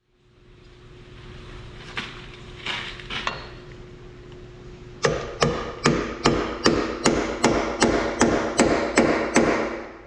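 Hand hammer striking a driving bar to drive a freezer-chilled bushing into a skid steer's lower boom pin bore: about a dozen evenly paced blows, roughly two and a half a second, starting about halfway through.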